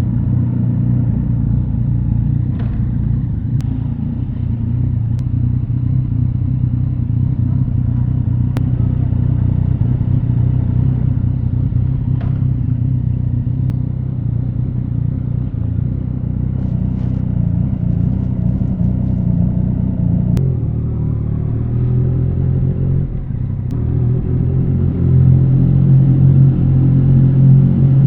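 2017 Yamaha MT-09's 847 cc inline-three running at low revs through an Akrapovic Racing Line carbon full exhaust, a steady deep exhaust note that grows louder in the last few seconds.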